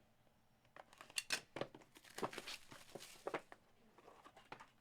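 Quiet crinkling, rustling and small clicks of packaging being handled as the next trading-card box is opened.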